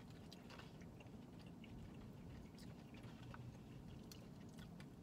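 Quiet chewing with small, scattered clicks and scrapes of plastic forks in foam takeout bowls, over a low steady hum.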